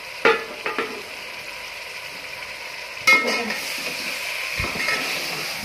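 Chicken pieces frying in an aluminium pot, a steady sizzle. A few sharp metallic clinks ring out, about a quarter second in and again about three seconds in.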